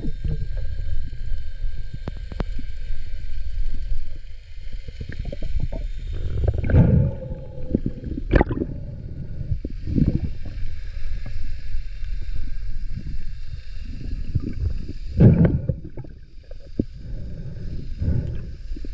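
Muffled underwater sound: a steady low rumble of water moving over the microphone, with loud gurgling rushes about seven, eight and fifteen seconds in.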